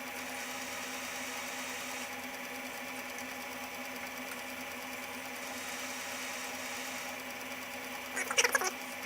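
South Bend Heavy 10 lathe running steadily, its drive giving a steady hum with a fixed whine. A short rattle of sharp metallic clinks comes about eight seconds in and again at the very end.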